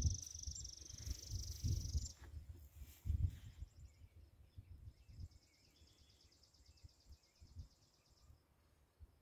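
Outdoor ambience: low rumbles on the microphone in the first few seconds, a high steady buzz that stops about two seconds in, then a high rapid trill from about four to eight seconds in, with faint chirps beneath it.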